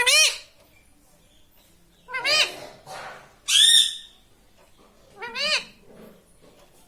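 Pet ring-necked parakeet calling four times, short loud calls about a second and a half apart, each rising and falling in pitch.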